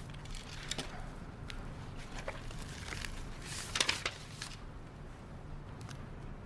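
A sheet of paper rustling and crinkling as it is unfolded and handled, in scattered small crackles with a louder burst of crackling about three and a half seconds in.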